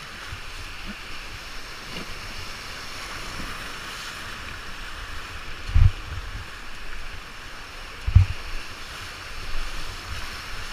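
Whitewater rapids rushing steadily around an inflatable raft, a constant hiss of churning water. Past the middle come two loud low thumps a little over two seconds apart.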